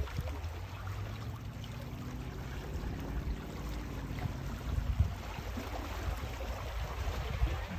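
Water washing against the boulders of a rock breakwater, over a steady low rumble.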